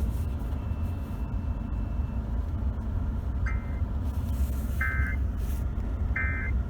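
Emergency Alert System end-of-message data bursts: three short two-tone digital bursts, about a second and a half apart, that signal the end of the alert message. They begin about three and a half seconds in, over a steady low rumble.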